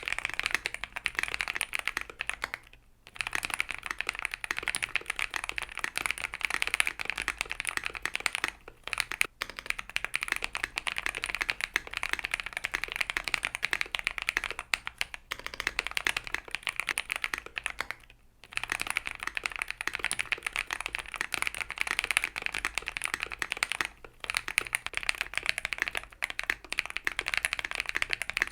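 Fast continuous typing on a QK60 60% mechanical keyboard with lubed Holypanda tactile switches on an FR4 plate, a dense stream of keystroke clacks broken by a few brief pauses.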